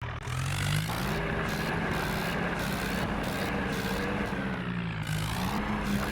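Heavy vehicle's diesel engine running steadily, its pitch sagging a little through the middle and rising again near the end.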